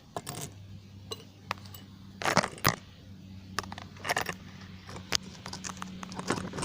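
Small pieces of scrap solder clinking as they are dropped into a quartz crucible: an irregular scatter of sharp metallic clicks, some in quick clusters. A steady low hum runs underneath.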